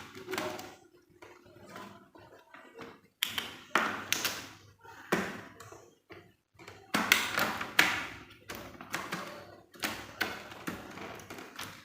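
Laptop bottom cover being fitted back onto the chassis and pressed into place: a series of sharp taps and clicks, irregularly spaced, most of them in the second half.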